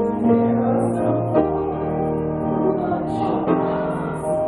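Slow gospel music played on a keyboard: sustained chords that change every second or so.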